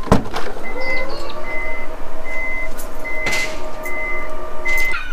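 Electric power tailgate of a Toyota Fortuner Crusade opening. A latch click comes first, then the tailgate motor's steady whine, with a short warning beep repeating about every three-quarters of a second. The motor winds down near the end as the tailgate reaches the top.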